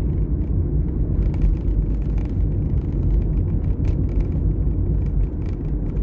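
Steady low rumble of a car's engine and tyres heard from inside the cabin while driving, with scattered faint clicks and rattles.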